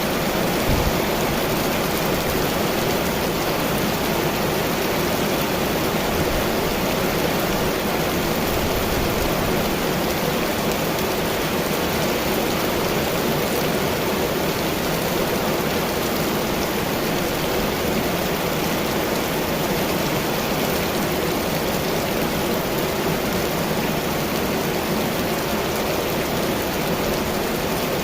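Heavy rain pouring steadily, a dense, even hiss without breaks.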